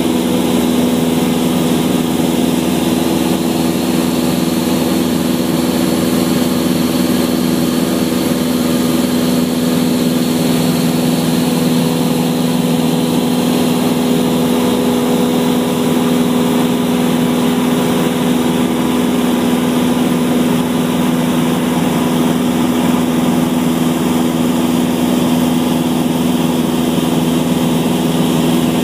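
Steady drone of a Cessna's piston engine and propeller heard from inside the cabin in flight, holding an even pitch, with an even rushing hiss over it.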